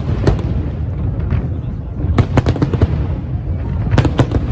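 Aerial firework shells bursting in quick succession: sharp bangs over a continuous low rumble, with clusters of bangs about two seconds in and again near the end.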